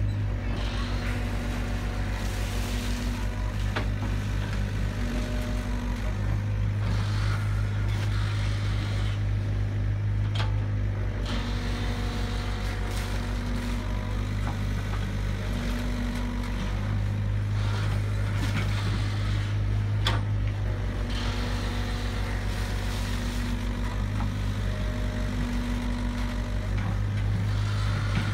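Hydraulic excavator's diesel engine running steadily while it digs, its drone swelling and easing every few seconds as the boom and bucket take load. A few sharp knocks sound through it.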